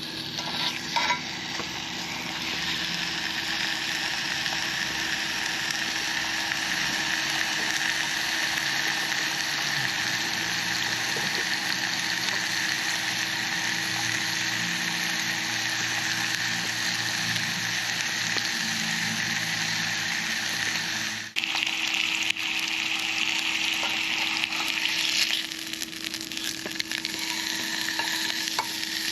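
Meat sizzling on a hot grill: a steady, dense sizzle, broken by a brief dip about two-thirds of the way through.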